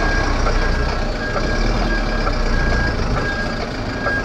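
Truck reversing alarm beeping, one repeating single-tone beep, over the diesel engine of a small DAF LF lorry running as it manoeuvres.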